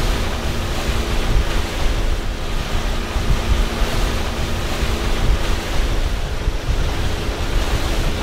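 Wind buffeting the microphone over open water, with the wash of waves and a steady low hum underneath.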